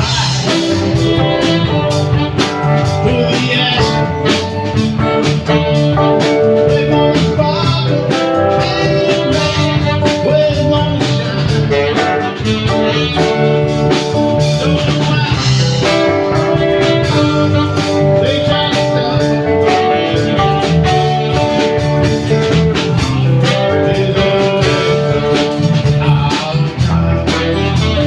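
Live blues-rock band playing: guitar, bass and drum kit, with held melodic notes over them.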